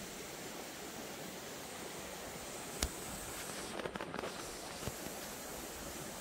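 Steady outdoor background hiss, with a sharp click about three seconds in and a brief patch of rustling and small clicks around four seconds from the camera being handled and lowered.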